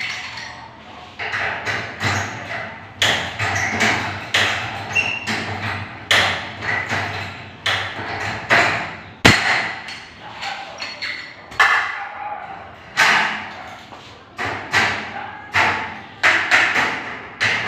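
A hand tool knocking and clanking against the steel studs of a metal-stud partition frame. The metallic strikes come irregularly, about one or two a second, each with a short ringing tail, and one sharp crack is louder than the rest a little past halfway.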